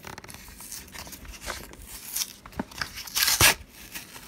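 Foil wrapper of a Pokémon Evolutions booster pack crinkling and crackling as it is handled, in short irregular rustles with a louder crackle about three seconds in.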